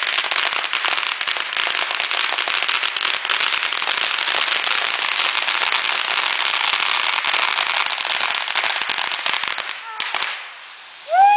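Strings of firecrackers packed into a burning Christmas tree going off in a dense, rapid crackle of pops that dies away about ten seconds in.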